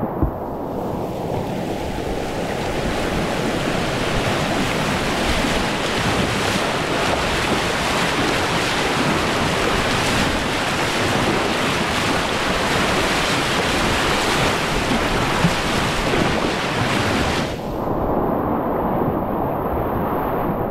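Whitewater river rushing past a kayak, a steady loud wash of water noise with wind buffeting the microphone. About three seconds before the end the hiss turns abruptly duller.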